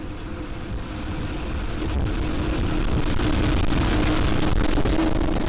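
Violent tornado striking a house, heard from inside on a handheld camera's microphone: a loud rushing wind roar that builds over the first few seconds, with a steady droning tone beneath it and a few sharp cracks of debris.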